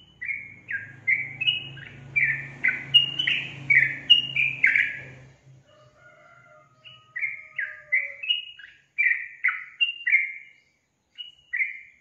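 Yellow-vented bulbul (trucukan) singing: a run of short, quick notes, many dropping in pitch, at about two to three a second. It breaks off about five seconds in and resumes about two seconds later until near the end. A low hum lies under the first run.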